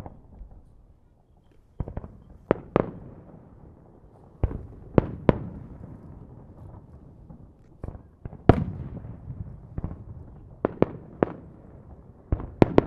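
Japanese aerial firework shells bursting overhead: sharp reports, often two or three in quick succession, coming every second or two, each trailing a rumbling echo.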